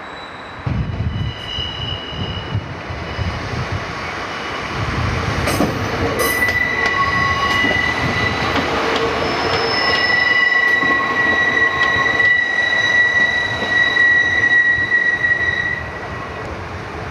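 Class 305 electric multiple unit running through curved station pointwork, its wheels squealing in several high steady tones over a low rumble. A few sharp clicks from the rail joints and points come about five to six seconds in. The squeal is loudest in the second half and dies away near the end.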